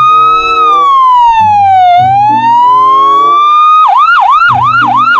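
Toy ambulance's electronic siren: a clean, loud slow wail that falls and then rises again, switching about four seconds in to a fast yelp of about two and a half sweeps a second. Low sustained notes sound underneath.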